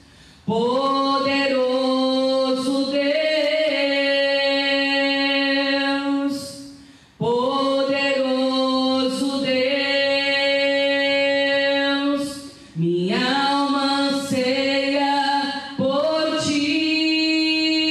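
A woman singing a slow worship song solo and unaccompanied into a handheld microphone. She holds long sustained notes in phrases several seconds long, pausing briefly at the start, about seven seconds in and about thirteen seconds in, where the next phrase begins with a rising note.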